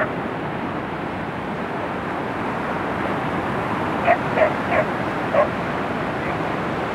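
Steady surf washing over sand and rocks. About four seconds in, a dog barks four times in quick succession, short and sharp.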